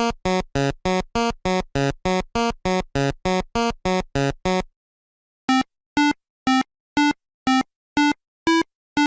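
Electronic synthesizer music of short, separate notes: a quick even run of about three notes a second, a brief pause about five seconds in, then a slower run of higher notes about two a second.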